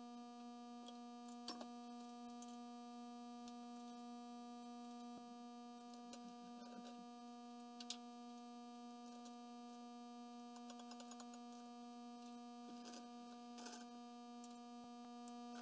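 Steady faint electrical hum, with a few scattered light clicks and clinks as a parting tool holder is lifted off a lathe's quick-change tool post and another tool is fitted.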